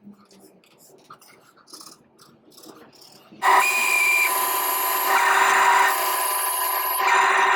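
A few faint taps, then a bandsaw cuts in abruptly about three and a half seconds in and runs loud and steady with a high whine, sawing wood for box joints.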